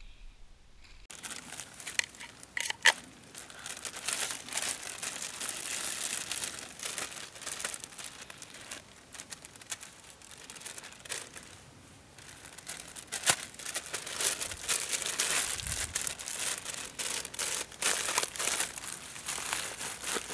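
Thin plastic bag crinkling and rustling as it is handled and opened, starting about a second in, with a few sharp clicks a couple of seconds in.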